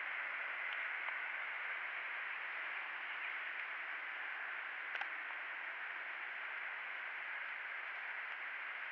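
Steady rain falling as an even, continuous hiss, with one sharp tick about five seconds in.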